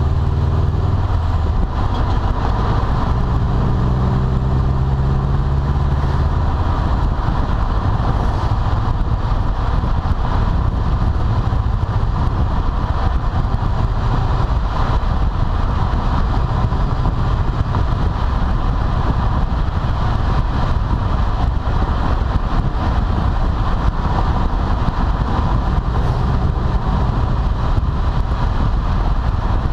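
2012 Subaru WRX, fitted with a full turboback exhaust, running in gear. The engine note is clear for the first several seconds, then blends into an even mix of engine and road noise. A faint steady high tone runs through it, fitting the in-gear squeak the owner is trying to track down, which stops when the clutch is pushed in.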